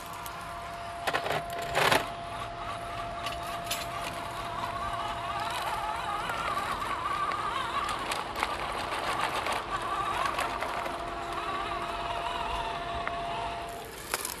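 Small electric motor and gearbox of a scale RC off-road truck whining steadily, its pitch wavering up and down as the throttle changes. Two sharp knocks come about one and two seconds in.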